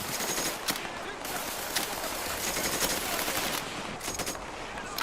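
Battle-scene gunfire sound effect: scattered sharp shots and short machine-gun strings at irregular intervals over a steady background hiss.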